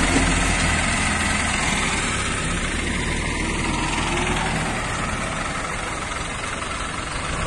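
Heavy diesel engine of construction machinery running steadily, a constant low rumble under a broad hiss.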